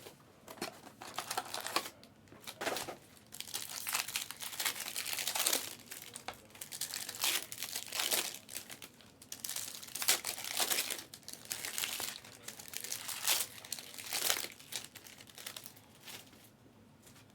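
Foil trading-card pack wrappers crinkling and tearing as packs are ripped open and handled, in repeated bursts every second or so.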